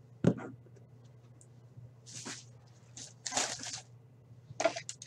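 Objects being handled on a tabletop: one sharp knock a fraction of a second in as a hard plastic graded-card case is set down, followed by several short rustles and scrapes.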